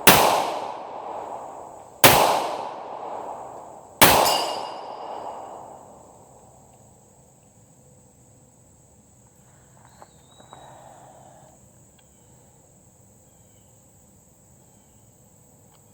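Three pistol shots from a Hi-Point JHP .45 ACP handgun, about two seconds apart, each echoing away; the last is followed by a short metallic ring from the steel gong target. Crickets keep up a faint steady high chirring.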